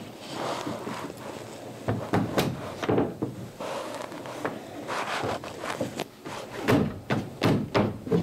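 Irregular wooden knocks, thumps and rubbing as a freshly steamed oak rib is forced by gloved hands against the clinker planking of a small dinghy hull, pushing it back into shape.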